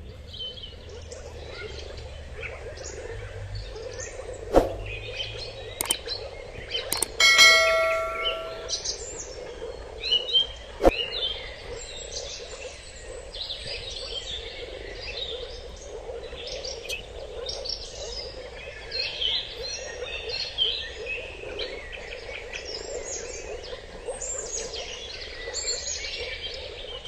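Small birds chirping and calling throughout, with a single metallic ding that rings on for about a second and a half, about seven seconds in. A couple of sharp clicks are heard, one before and one after the ding.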